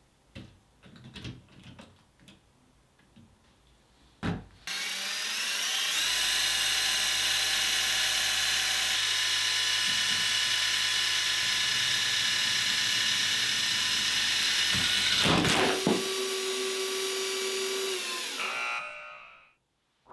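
LEGO train's small electric motors whirring with a high whine as they spin its downforce propeller fan and drive its wheels. They start about four and a half seconds in after a few light plastic clicks, a clatter comes about fifteen seconds in, and the motors run on a little before winding down near the end.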